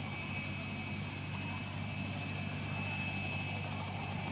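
Mil Mi-2 helicopter in low flight, its twin turboshaft engines and rotor running steadily. A high whine sits over the low drone of the rotor.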